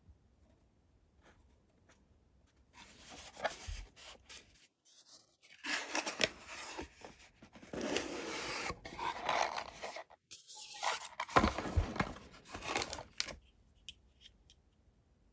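Blind-box packaging being torn open and handled: irregular bursts of tearing, rustling and rubbing. The sound starts about three seconds in and stops shortly before the end.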